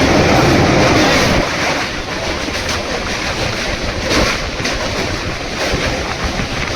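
Passenger train running at speed, heard from on board: a steady rush of wheels on rail and wind. The noise drops abruptly about a second and a half in, and a few faint wheel clacks follow.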